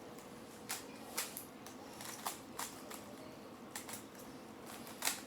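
Rubik's Cube layers being turned by hand: irregular plastic clicks and clacks, with the loudest click near the end.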